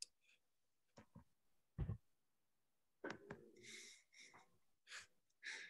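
Mostly quiet room tone broken by small scattered noises: a couple of light clicks, one low thud about two seconds in (the loudest sound), and several short breathy hisses.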